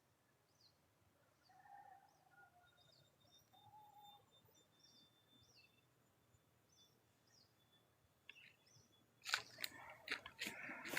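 Quiet forest ambience with a small bird chirping in short high notes repeated about every half-second, and a few faint lower whistled calls early on. About nine seconds in, loud close rustling and crackling begins.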